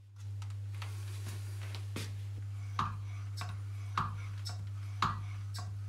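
Hand lever of a milling machine's central lubrication pump being pulled over and over, a faint sharp click with a slight ring about once a second, over a steady low hum. The pump is being primed after its oil tank was refilled.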